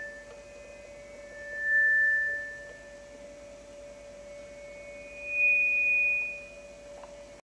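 Sustained pure high tones that swell in and fade away: one about two seconds in, and a slightly higher one near the end. They sit over a steady lower hum that cuts off suddenly at the end.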